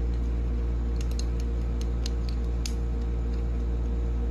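Small, sharp plastic clicks and ticks from a Transformers Studio Series Lockdown action figure being handled and its jointed parts moved. Under them runs a steady low electrical hum.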